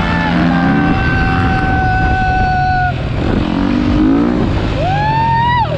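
Dirt bike engines running at speed: one engine is held at a steady high pitch for about three seconds, then backs off, and near the end a sharp rev climbs and falls away, over the lower rumble of other bikes and wind on the microphone.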